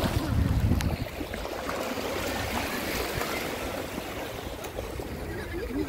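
Shallow sea water washing and sloshing at the shoreline, with wind buffeting the phone's microphone as a low rumble in the first second.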